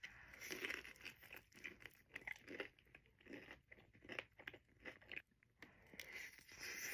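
Faint, close-up chewing and crunching of a breaded, sauce-dipped hot honey chicken tender, in short irregular bites. Near the end a forkful of fries with cheese sauce and ranch goes into the mouth.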